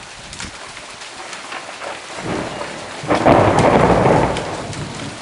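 Thunderclap during a downpour: steady rain hiss with scattered drop ticks, a low rumble building about two seconds in, then a loud crack-and-rumble about three seconds in that dies away over the next two seconds.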